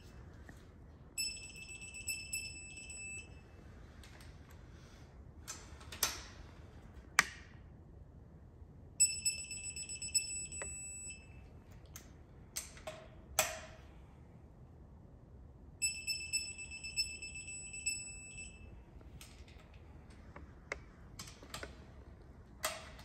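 Electronic torque wrench beeping three times, in spells of about two seconds each, as cylinder head bolts are pulled up to the 75 ft-lb setting; the beep is its signal that the set torque has been reached. Sharp clicks and knocks of the socket and wrench on the bolts come in between.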